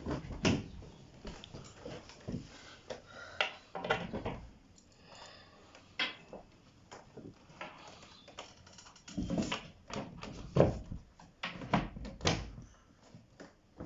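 Irregular knocks, taps and scrapes of particleboard wardrobe panels and their fittings being handled and fitted together, with a few sharper clicks.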